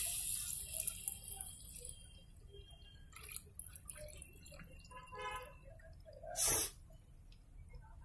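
Crab-claw juice poured into a pot of oil-fried masala. The sizzle of liquid hitting the hot masala fades within the first second or two, leaving liquid trickling and dripping with small scattered clicks. A brief, louder rush comes about six and a half seconds in.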